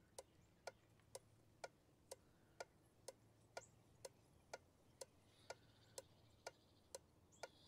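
New Bosch 70-amp four-pin relay clicking about twice a second, evenly spaced, as a Super Relay Buddy tester cycles it on and off. The relay passes the test, so it is good.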